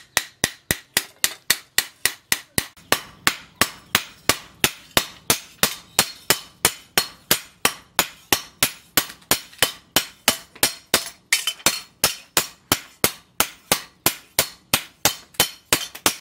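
Hand hammer striking a red-hot steel cleaver blank, cut from a tractor plough disc, on a steel post anvil: a steady run of sharp metal blows at about three a second.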